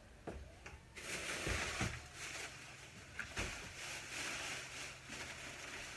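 Groceries being handled and set down during unpacking: rustling of bags and packaging with a couple of soft thumps, over a faint steady hum.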